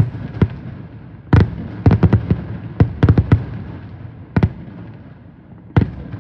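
Aerial fireworks exploding: about a dozen sharp bangs at irregular intervals, several in quick clusters, over a low rumble.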